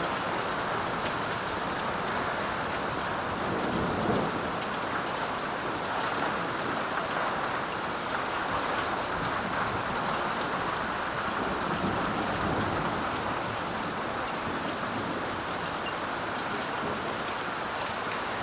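Heavy rain pouring steadily, a dense even hiss. A low rumble swells up about four seconds in and again around twelve seconds.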